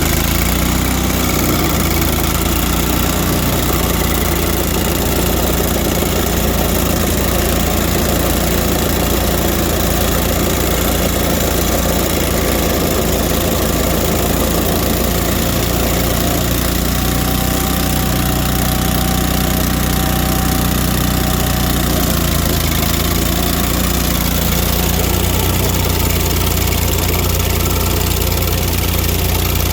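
Engine of a 2002 Vermeer SC252 stump grinder running steadily at an even speed.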